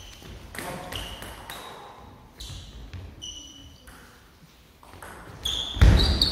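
Plastic table tennis ball clicking against the table and bats: a few scattered hits at first, then louder, quicker hits near the end as a doubles rally gets going.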